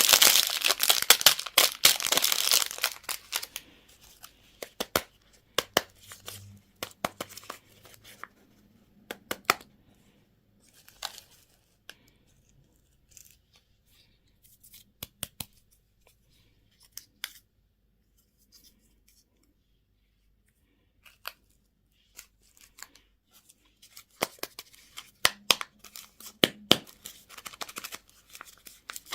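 Plastic candy wrapping being torn open and crinkled by hand, loudest in the first few seconds. Scattered sharp clicks and taps of packaging follow, then a near-silent stretch, and more crinkling and clicking near the end.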